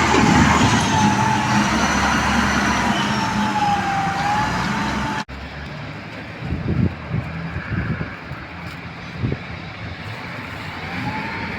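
Heavy construction machine's diesel engine running under load with a slowly wavering whine over the engine noise. About halfway through it cuts off abruptly to a quieter engine sound with a few knocks.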